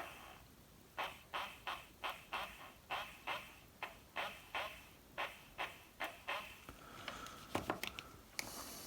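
Small DC motor of a Toyota blend door servo actuator running on the bench from 12 volts, after brush and commutator cleanup. It ticks evenly, about three times a second, and then gives a faint steady whine near the end, with a few clicks.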